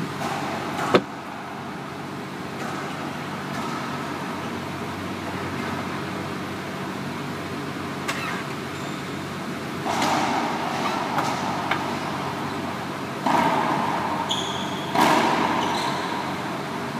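A single sharp smack of a racquetball striking the court about a second in, over a steady background hum. A few short, louder swells of noise follow later.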